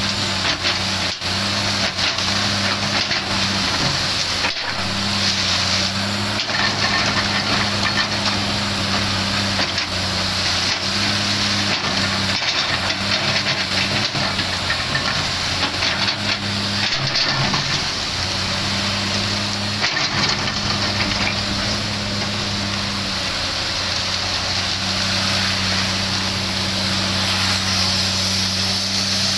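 Komatsu PC300 hydraulic excavator's diesel engine running steadily under load as it digs and swings, with occasional knocks of coal and rock against the bucket.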